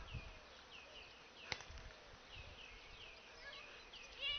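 Faint outdoor ambience of short high chirps repeating about three times a second, with one short knock about one and a half seconds in.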